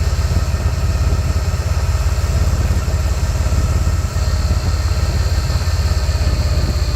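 Honda Shadow motorcycle's V-twin engine running steadily with a fast, even low pulse, most likely idling.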